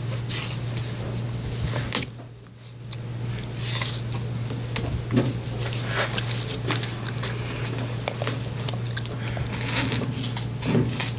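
Bandage scissors snipping and crunching through the cotton padding of a leg cast in short, irregular cuts, over a steady low hum.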